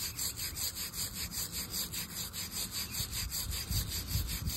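Wire fitting brush scrubbing the inside of a copper pipe fitting, a fast, even scratching rhythm, cleaning the fitting's bore before it is fluxed and soldered.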